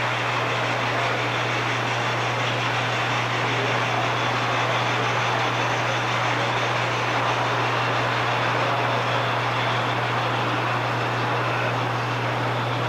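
O-scale model train running along the layout's track: a steady rolling noise with no distinct rail clicks, over a constant low hum.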